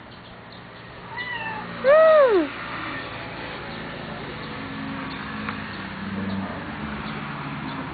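Domestic cat meowing twice: a short, softer meow about a second in, then a louder meow that rises and falls in pitch.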